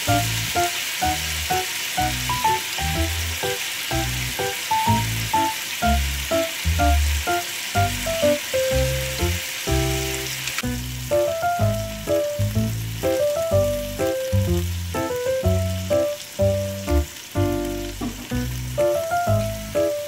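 Chicken pieces in a dark glaze sizzling and frying in a pan, under background music with a steady bass beat and a simple melody. The sizzle drops off sharply about halfway through, and the music carries on.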